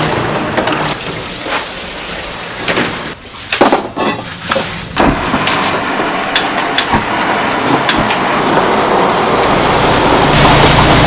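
Busy kitchen noise: a steady rushing hiss, like running water or sizzling, with scattered clinks and knocks throughout, growing louder near the end.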